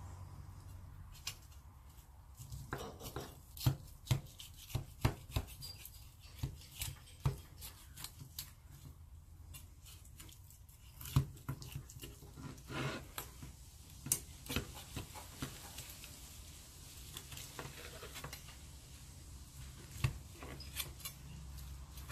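Knife and cutlery working a grilled Wagyu ribeye steak: irregular sharp knocks, clicks and scrapes, a few of them louder, over a low steady background rumble.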